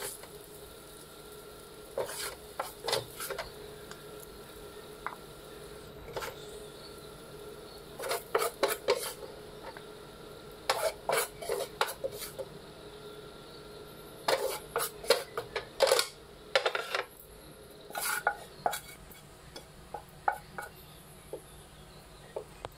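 Spatula scraping and tapping in a non-stick frying pan as fried rice is scooped out onto a plate, in short clusters of scrapes and knocks with pauses between.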